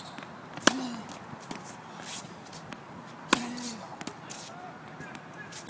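Tennis rally on a hard court: loud racket-on-ball hits about a second in, about three seconds later and again at the end, each with a short ring of the strings, with fainter hits and ball bounces between them.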